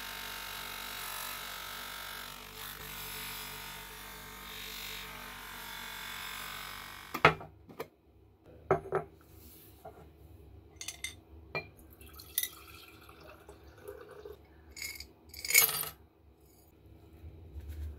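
Bench-motor wire wheel spinning steadily as a small revolver part is held against it to brush off rust, giving way suddenly about seven seconds in. After that comes a glass jar clinking on the table and small metal gun parts tipped out of it, with a sharp clink just after the change and the loudest clatter near the end.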